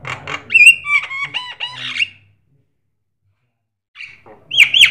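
Javan myna (jalak kebo) calling in a cage: a rapid run of harsh notes mixed with short rising and falling whistles that breaks off about two seconds in. After a silent gap, loud whistled notes start again near the end.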